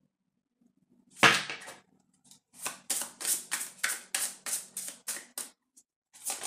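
A deck of tarot cards being shuffled by hand. There is one loud swish about a second in, then a quick even run of papery shuffling strokes, about three a second.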